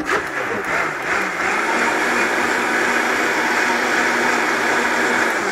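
Vitamix countertop blender running at speed, its motor whirring and the liquid brine churning in the jar. It starts at once, runs steadily, and begins to wind down right at the end as it is switched off.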